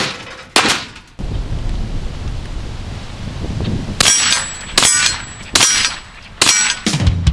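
TNW AERO 9mm takedown rifle firing: two shots near the start, then after a pause of about three seconds a run of five shots a little under a second apart. Some shots are followed by a short high metallic ring.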